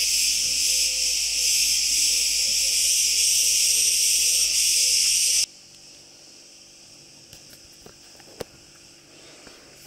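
A constant, high-pitched insect chorus holds steady, then cuts off abruptly about halfway through. What follows is quiet room tone with a few faint clicks.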